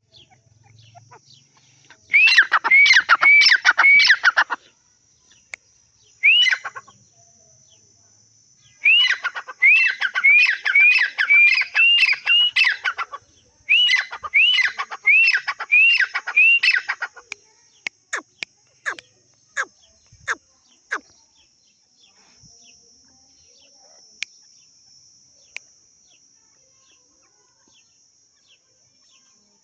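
Francolin (tetar) calling: loud bouts of rapidly repeated ringing notes, each rising then falling, about two a second, in four bursts, then a few sharp single notes. A steady high-pitched whine runs underneath.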